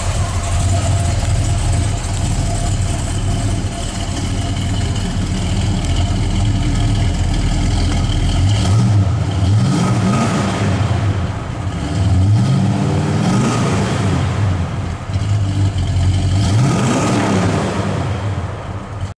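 1972 Chevrolet Chevelle's 402 big-block V8 idling steadily, then revved in several short blips during the second half, each one rising and falling in pitch.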